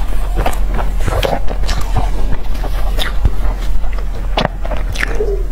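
Close-miked mouth sounds of a person biting and chewing a soft, custard-dipped pastry: irregular wet smacks and small clicks, several a second, over a steady low hum.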